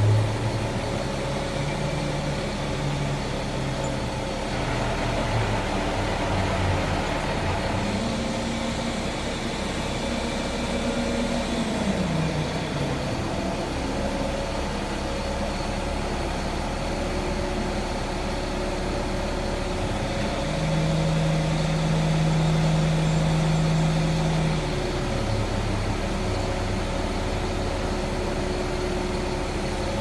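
Truck-mounted crane's engine running beside the rig, twice revving up to a higher held speed for a few seconds and settling back down while the crane works a suspended tree section.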